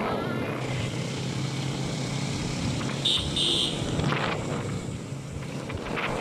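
Motorbike engine running steadily while riding, with road and wind noise. Two short high-pitched beeps about three seconds in.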